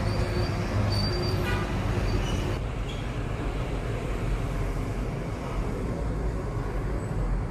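Steady low rumble of motor-vehicle noise, with a few faint short tones in the first two seconds.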